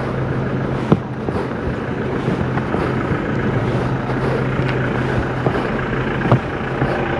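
A motor vehicle's engine running with a steady low hum over a continuous rushing noise, with a couple of sharp knocks about a second in and near the end.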